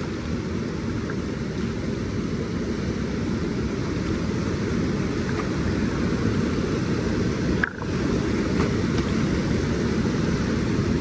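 Steady low rushing noise of water flowing below a lock and dam, with no clear events; it dips briefly about eight seconds in.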